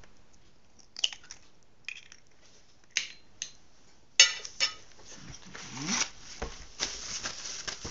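An egg being broken into a bowl of flour, with scattered light taps and clicks of shell and bowl. A louder ringing clink comes about four seconds in, followed by a rougher stretch of clatter and rustling.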